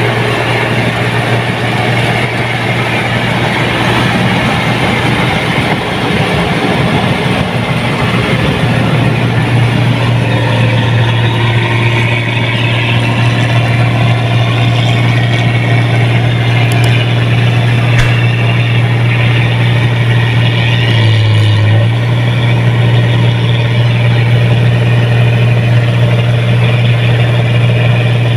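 New Holland Clayson 1545 combine harvester running while it cuts ripe rice, its engine giving a loud, steady low hum.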